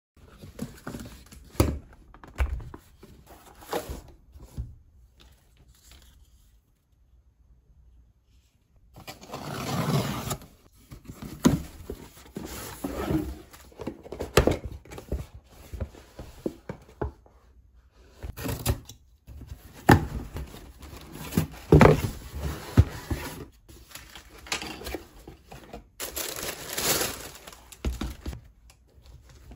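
Cardboard box being opened and unpacked by hand: the lid scraping and thudding, with wrapping rustling, crinkling and tearing in irregular bursts that grow louder after the first few seconds.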